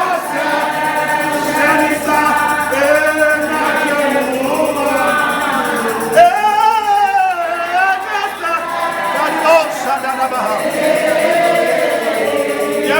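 Voices singing a gospel song together with musical accompaniment; one voice comes in louder about six seconds in.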